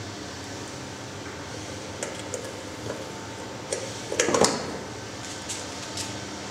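A patch cable's jack plug being handled and plugged into a small audio box: a few sharp clicks, then a short loud crackle a little past the middle, over a steady hum and hiss.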